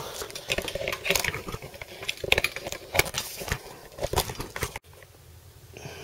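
Handling noise: a quick, irregular run of clicks, rattles and small knocks that stops abruptly about five seconds in.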